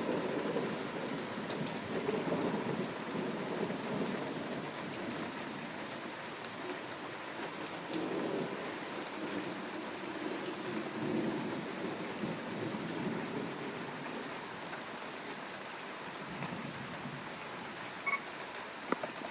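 Thunderstorm: steady rain falling, with low rolling thunder that swells and fades several times beneath it.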